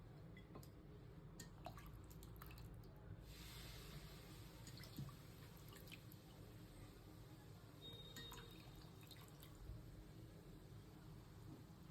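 Near silence: a faint low hum with scattered small clicks and ticks.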